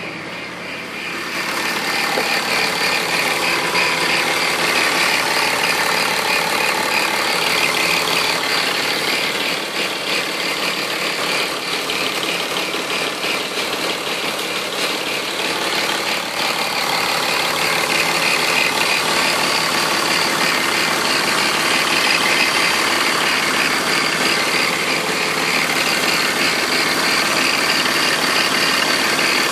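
BMW E46 engine idling steadily, with a steady high-pitched whine over it that the owner finds strange. It gets louder about a second and a half in.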